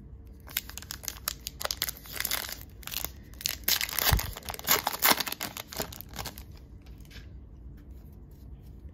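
Foil wrapper of a trading-card pack crinkling and tearing open, a dense run of crackles that thins out after about six seconds.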